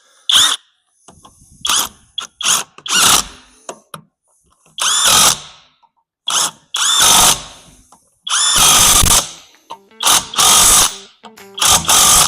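Power tool run in short bursts, about a dozen, some a second long, as it runs the wheel nuts on to nip up the refitted road wheel; the motor pitch rises at the start of each burst.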